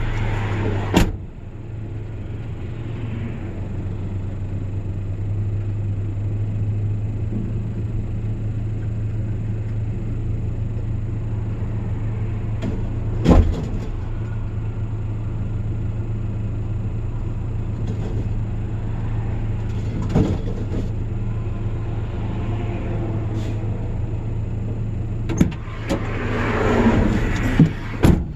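Vehicle engine running steadily with a low hum, broken by a few sharp knocks or thumps, one about a second in, another about 13 seconds in and more near the end.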